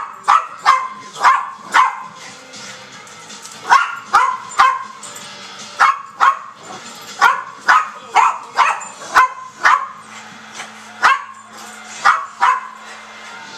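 Puppy barking repeatedly at dogs on the television: short, sharp barks in clusters of two to five, with a second or two between clusters. Faint television music sounds underneath.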